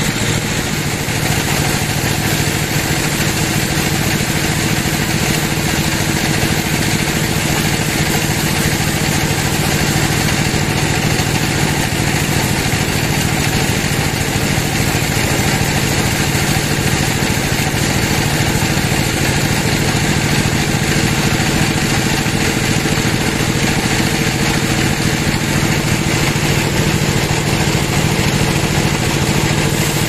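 Log band saw running steadily as its blade rips lengthwise through a teak log: a constant machine hum with the hiss of the blade in the wood, no breaks or changes.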